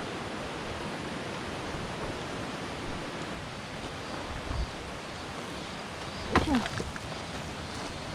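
Steady rush of a mountain stream, with a brief knock about six seconds in.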